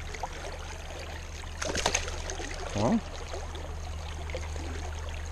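Creek water rushing steadily past a wading angler. A few sharp splashes or knocks come about two seconds in, and a short vocal grunt follows about a second later.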